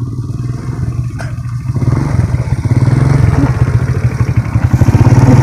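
Small motorcycle engine running at low speed, getting louder from about two seconds in, with some clattering.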